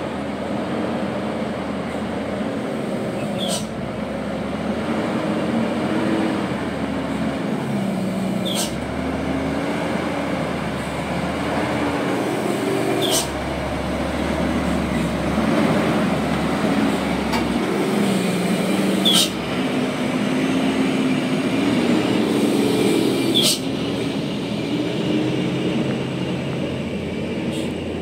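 Diesel engine of a fully loaded Hino 500 dump truck labouring at low speed, its revs rising and falling. A short sharp click sounds about every four to five seconds, five times in all.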